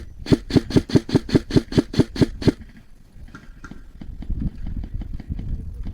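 Airsoft gun firing a rapid string of about a dozen shots, roughly five a second, that stops about two and a half seconds in, followed by fainter scattered clicks.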